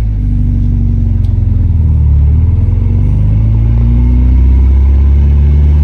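1993 Nissan 240SX engine pulling the car away in first gear, its pitch dipping slightly and then climbing as it accelerates.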